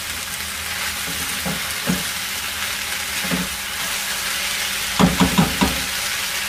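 Chicken and finely shredded vegetables sizzling in a frying pan over a high flame while being stirred with a spatula. The spatula knocks softly on the pan a few times, then four louder knocks come in quick succession near the end.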